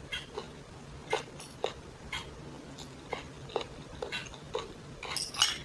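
Close-up eating sounds of a person chewing a mouthful of pancit canton noodles: short irregular mouth clicks and lip smacks, about two a second.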